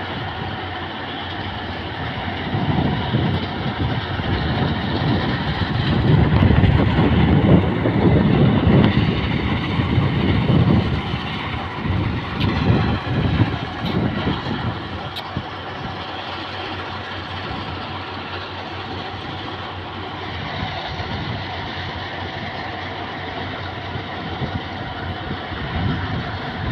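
Yanmar rice combine harvester running steadily, a constant machine drone, swelling with a louder low rumble from about 2 to 15 seconds in.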